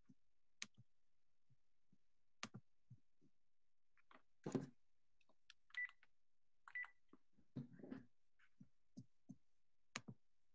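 Near silence broken by scattered faint clicks and two short beeps, irregularly spaced, in a quiet room over a call.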